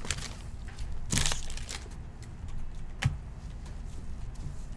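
Foil trading-card pack wrapper crinkling as the cards are slid out of it by gloved hands, with two sharp crackles about a second and three seconds in.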